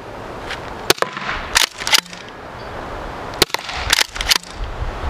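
Umarex T4E HDX CO2-powered less-lethal launcher firing inert, baby-powder-filled rounds: several sharp pops at irregular intervals, a second or so apart.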